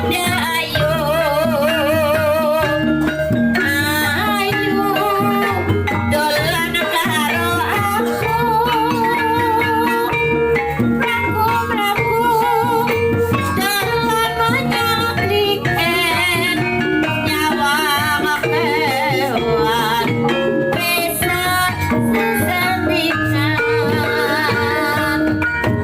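Javanese folk-performance music with a singer's voice wavering in pitch over a steady drum-led accompaniment, as played for kuda lumping dance.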